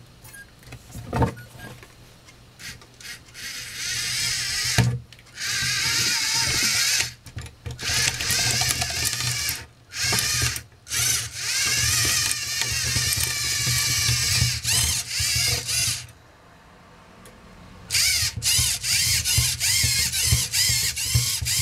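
Lego Mindstorms motors on a radio-controlled rover whirring in repeated bursts, a whine that rises and falls in pitch as the throttle changes. It starts after a few light clicks, stops for a couple of seconds about three-quarters through, and ends in short, quick bursts.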